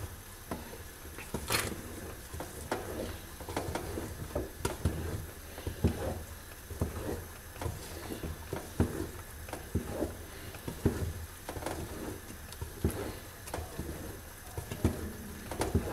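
A wooden spoon stirring a thick, bubbling sesame and hazelnut paste (Tunisian zrir) in a large metal pot, with irregular soft plops and scrapes as the paste cooks.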